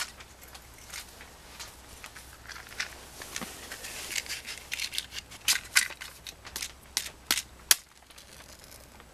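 Sharp scratching clicks from a match being struck against a matchbox, several strokes in a row, the loudest just before the end, then stopping abruptly.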